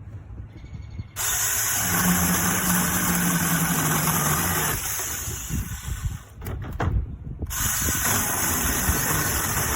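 A SEESII 6-inch cordless mini chainsaw with a brushless motor starts about a second in and runs steadily, cutting through a thicker piece of wood with little effort. It stops briefly around seven seconds in, then starts again.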